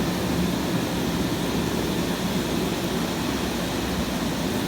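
Jacuzzi pump running with its jets churning the water: a steady rushing, whooshing noise with a low hum.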